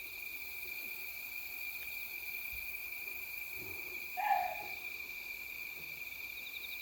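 A single short animal call about four seconds in, over steady chirring of night insects; the walker takes it for a Korean water deer calling.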